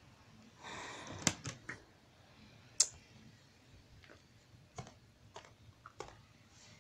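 Small clicks and taps from dolls and props being handled, with a brief rustle about a second in and one louder click near the middle.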